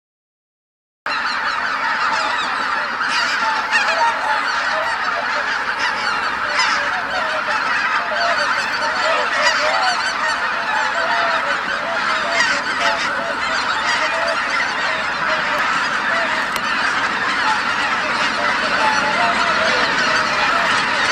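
A large flock of wild geese, at Izunuma mostly greater white-fronted geese, calling all at once in a dense chorus of many overlapping honks, starting about a second in.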